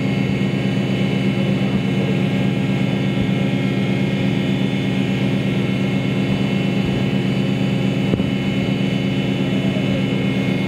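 A ship's engine running with a steady, unchanging drone made of several low held tones.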